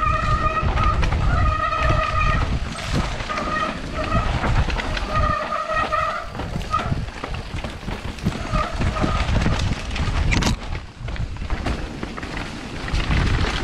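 Mountain bike running down a rough trail: wind buffeting the microphone, with rattling and knocks over the ground. Through the first seven seconds or so a high squeal comes and goes in short bursts, the disc brakes squealing as the rider brakes.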